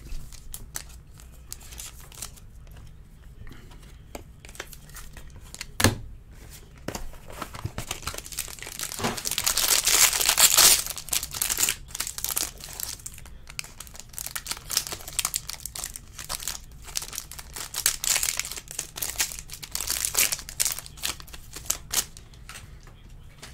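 Foil wrappers of baseball card packs being torn open and crinkled by hand, with scattered small clicks. The crinkling is loudest about ten seconds in and again around eighteen to twenty seconds.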